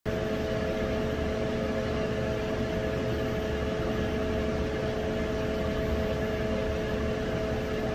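Steady mechanical hum and rush of air from commercial kitchen ventilation, with two constant tones over a low rumble.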